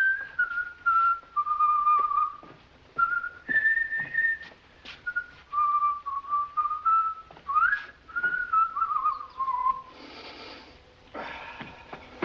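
A man whistling a tune: one wavering melody of held and sliding notes that breaks off about ten seconds in. Two short hissing sounds follow near the end.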